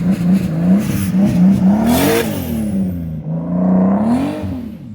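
Big-turbo 2JZ straight-six engine in a Nissan Cima / Infiniti Q45, idling unevenly and then revved twice, the pitch rising and falling back each time, with a burst of hiss as the first rev peaks; it settles back to idle near the end.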